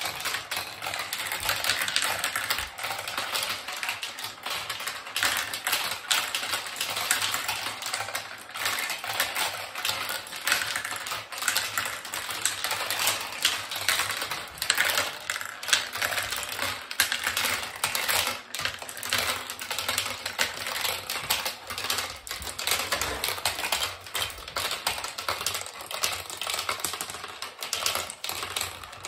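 Marbles rolling and clattering down a plastic marble run: a dense, continuous rattle of small clicks as they drop through the tubes and run along the tracks and funnels.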